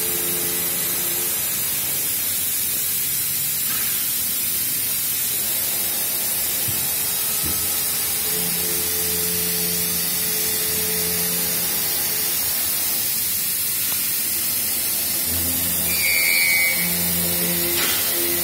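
Steady hiss of factory background noise at an even level, with faint low hum tones coming and going. A short high chirp sounds about sixteen seconds in.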